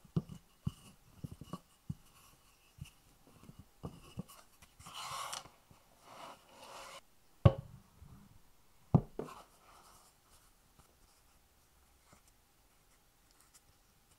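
Hands handling a sheet of puff pastry on a wooden cutting board: scattered light taps, a rustling rub as the sheet slides, then two sharp knocks about a second and a half apart as the glass pie dish bumps the board. It goes nearly quiet for the last few seconds.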